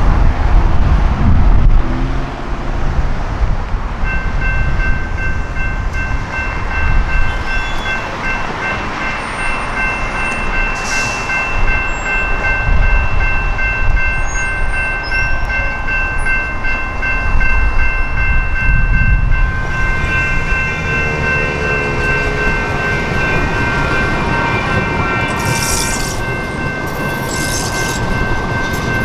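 A General Signals Type 2 electronic crossing bell ringing rapidly and steadily, starting a few seconds in, over the rumble of a train passing through the grade crossing.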